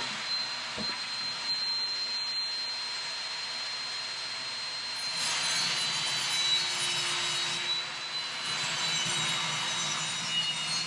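A power saw running with a steady high whine, cutting Coosa board; the cutting noise grows rougher and louder about halfway through.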